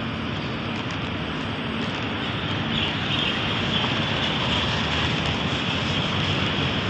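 Steady rushing noise of road traffic, growing a little louder about three seconds in.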